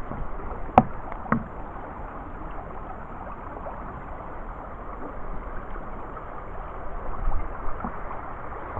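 Brook water rushing steadily, running high with snowmelt. Two sharp knocks sound about a second in.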